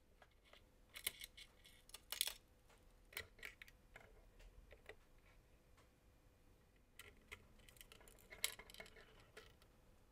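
Faint, scattered clicks and light taps of a Torx T8 screwdriver and small screws being handled inside an Apple Time Capsule's case, in two short clusters with a quiet stretch between.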